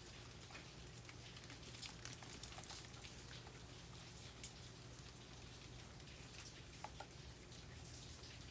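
Faint, light rain falling, with many single raindrops tapping irregularly on nearby surfaces.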